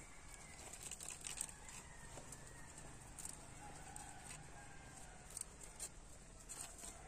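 Faint calls of birds, likely chickens, with scattered small clicks and crackles, some from the campfire.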